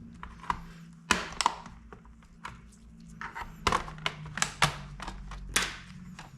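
Plastic bottom cover (D cover) of an HP Pavilion G-series laptop being pried off: a string of irregular sharp clicks and snaps as its clips let go, over a faint steady low hum.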